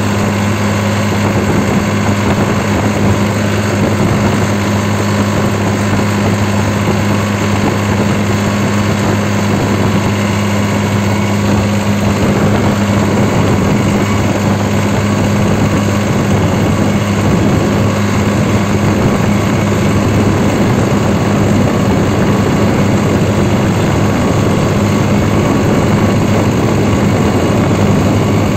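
New Holland 3630 Super Plus tractor's diesel engine running at a steady throttle while driving along a road, heard from the driver's seat. A steady, even drone with no change in pace.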